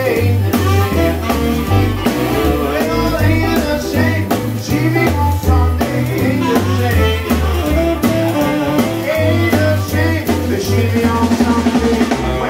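Live swing combo playing a jump-blues tune: a saxophone carries the melody over a walking bass line, drum kit, electric guitars and piano.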